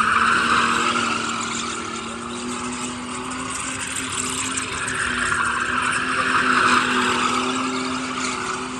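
Car engine held at steady high revs while the spinning tyres squeal through a drift. The tyre noise swells twice, near the start and again about six seconds in.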